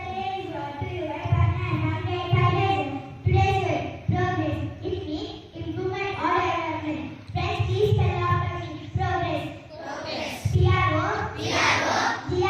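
Children singing a song, holding long notes.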